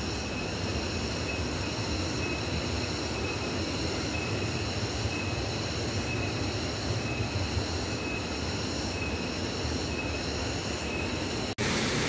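Steady rushing of a waterfall and its water, an even roar with a faint high chirp repeating every second or so.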